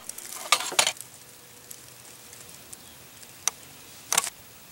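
A few light clicks and rustles, as of something being handled, with one sharp click past the middle and a short cluster of clicks near the end.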